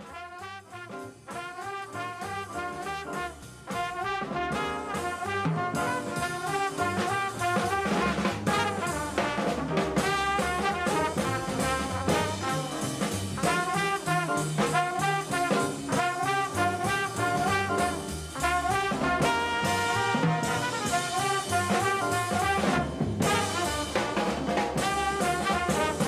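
Small jazz group playing bebop: trumpet and saxophone carry the melody over a drum kit. The music starts softer and becomes fuller about four seconds in.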